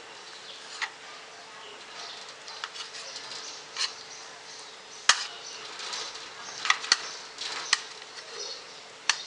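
Kitchen knife cutting soft boiled goat brain on a plate, the blade clicking sharply against the plate about seven times at irregular intervals, with light scraping between the clicks.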